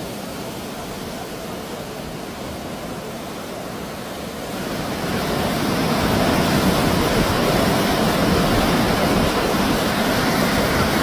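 Steady rushing noise of floodwater, growing louder about five seconds in.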